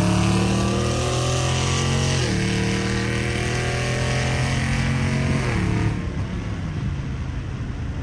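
Dodge Challenger engine accelerating hard through the gears, heard from inside the cabin. Its pitch climbs, drops at an upshift a little over two seconds in, climbs again and drops at a second upshift about five and a half seconds in, then settles lower and quieter.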